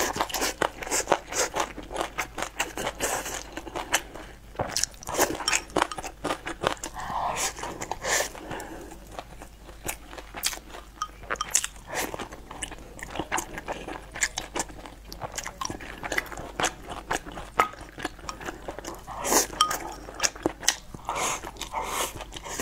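Close-miked chewing of braised pork belly and rice, with many quick, sharp, wet mouth clicks coming irregularly throughout.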